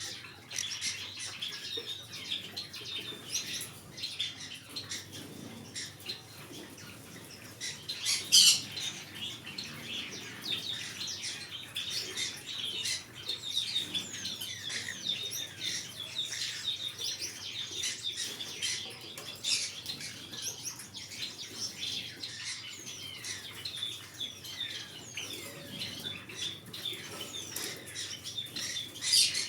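Green-cheeked conures chirping continuously, many short high chirps overlapping, with a louder squawk about eight seconds in and another near the end.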